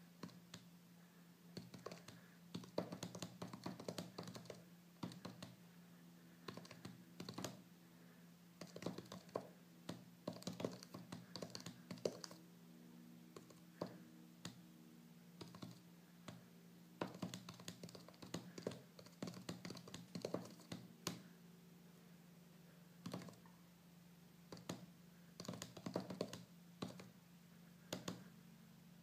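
Fingers typing on a Touchfire silicone keyboard overlay on an iPad mini's touchscreen: quick, faint taps in bursts, with short pauses between words and phrases.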